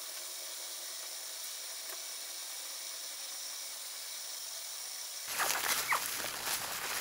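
A steady high hiss. About five seconds in it gives way to hands digging through sand and dry leaves, with crackling and rustling in quick, uneven strokes.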